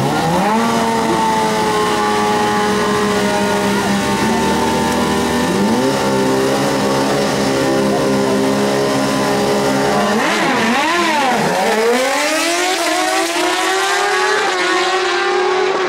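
Two inline-four sportbikes' engines held at steady high revs on the start line, stepping up in pitch twice. About ten seconds in they launch: the pitch dips and climbs through quick gear changes, then rises steadily as the bikes accelerate away.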